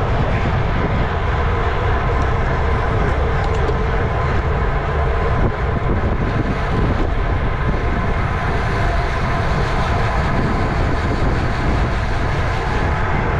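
Steady wind rush on the microphone and road noise from a road bicycle ridden at race speed in a criterium, with a faint steady hum from the tyres and drivetrain.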